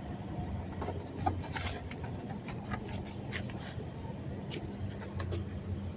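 A vehicle engine running with a steady low hum that swells and fades unevenly, with scattered light clicks and ticks over it. The owner calls this unevenness coughing and wonders whether it comes from the gas tank.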